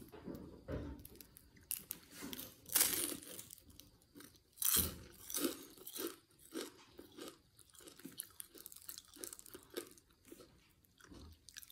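Crunching bites into a crispy deep-fried dynamite lumpia (a green chili wrapped in a spring-roll wrapper), with two loud crunches about three and five seconds in, then steady close-up chewing about twice a second.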